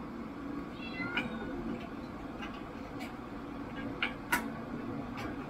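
A cat gives a short, high meow about a second in, over a steady low room hum, with a few sharp clicks later on.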